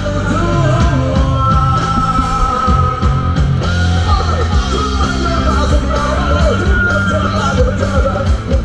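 Loud rock music with a singing voice over a heavy bass and a steady drum beat.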